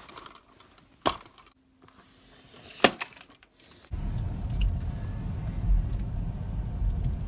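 A phone being handled, with scattered sharp clicks and knocks. About four seconds in, the sound cuts to the steady low rumble of a car driving slowly, heard from inside the cabin.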